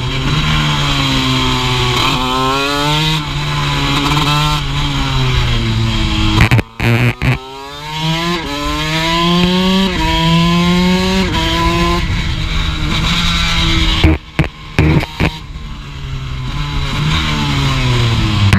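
Honda CR125 single-cylinder two-stroke engine in a race bike running hard on track: the revs climb and drop back in steps as it shifts up through the gears, then fall away as it slows near the end. Twice the engine note cuts out briefly among a few loud sharp cracks, about a third of the way in and again about three-quarters through.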